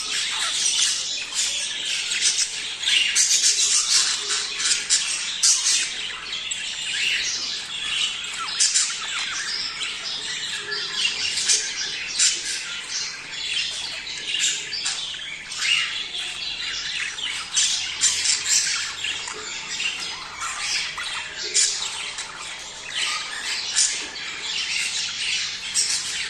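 A flock of budgerigars chattering and squawking, many short calls overlapping in a continuous dense chorus.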